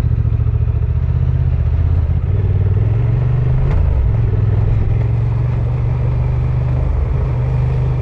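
Honda XL750 Transalp's parallel-twin engine running steadily as the motorcycle rides along a dirt forest track, its note dipping briefly about four seconds in.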